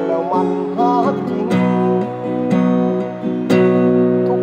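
Steel-string acoustic guitar strummed in a steady chord pattern, with harder strokes about a second and a half in and again near the end.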